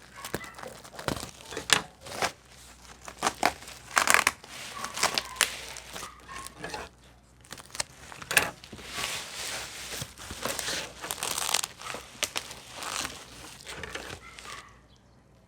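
Packaging crinkling and rustling in irregular bursts as it is handled and unwrapped, with a few sharper crackles and a quieter spell near the end.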